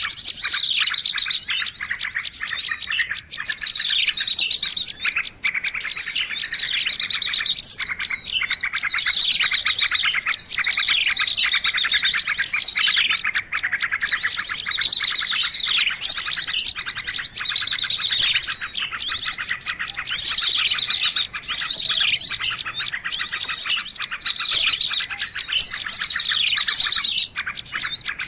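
Dense chorus of small birds chirping and trilling rapidly and without a break, many calls overlapping: a bird-lure call track used to draw small birds in.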